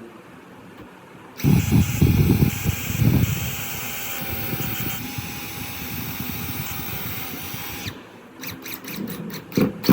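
Electric hand drill, mounted in a homemade drill press, switches on about a second and a half in and runs with a steady whine. It is rougher and louder for its first couple of seconds, then stops abruptly near the end. A series of sharp clicks and taps follows.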